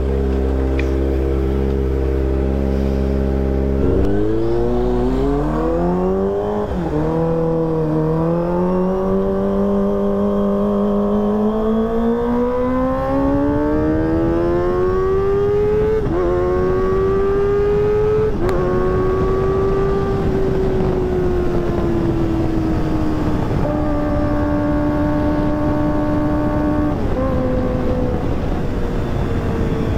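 Kawasaki ZX-25R's 250 cc inline-four through a ProLiner TR2 full-system exhaust. It idles steadily, then pulls away about four seconds in, climbing in pitch through the gears with about three upshifts. It then holds a steady cruise, easing off slightly near the end.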